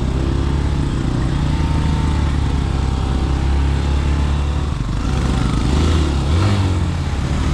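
Motorcycle engine running steadily, its note rising briefly about six seconds in.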